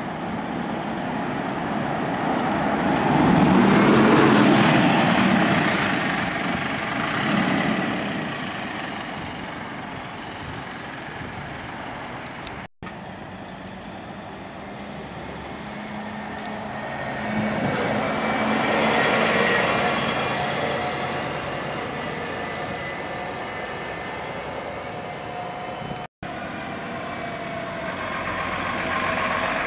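Diesel buses driving past one after another, a single-decker and then Stagecoach double-deckers, each engine getting louder as it approaches and fading as it goes by. The three passes are joined by abrupt cuts, and the last bus grows louder near the end.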